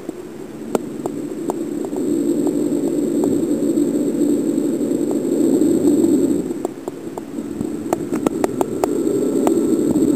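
Muffled rumble of water heard through a camera held underwater, with scattered sharp clicks and taps, more frequent in the second half.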